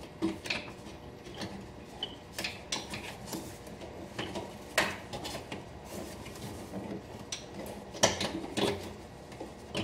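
Irregular clicks, taps and rubbing of hands working plastic air-intake parts in an engine bay, with sharper knocks about five and eight seconds in.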